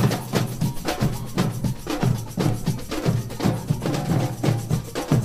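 Samba drum band (bateria) playing a steady, driving rhythm, deep bass drums marking an even beat under crisp snare and higher drum strokes.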